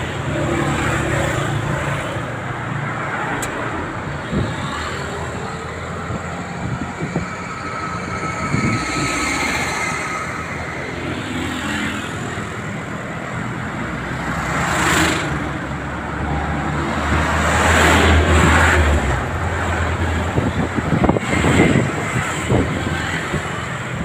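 Road traffic passing close by: a van, cars and motorcycles going past with steady tyre and engine noise. Vehicles swell past several times, loudest with a deep engine hum about three-quarters of the way through.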